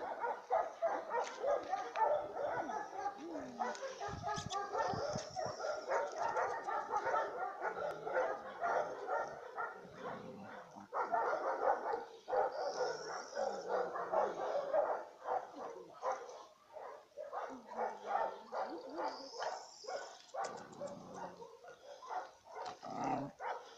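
Several dogs whining and yipping excitedly in an almost unbroken chorus, with a few barks among them.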